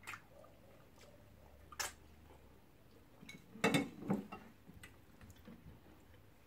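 Close-up eating sounds from people eating pounded yam and soup with their hands: a few short, sharp mouth smacks and clicks. The loudest comes about three and a half seconds in, with another just after it.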